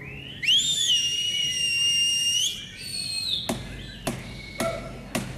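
A loud whistle that glides up and is held on one steady pitch for about two seconds, followed by a shorter, higher whistle. In the last two seconds come a few sharp knocks.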